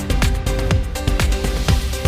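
Electronic background music with a steady kick-drum beat.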